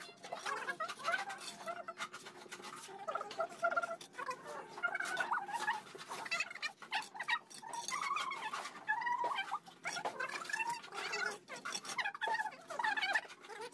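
Steel mason's trowel scraping and knocking on fresh mortar and concrete hollow blocks: many short scrapes and clicks. Squeaky animal calls run alongside.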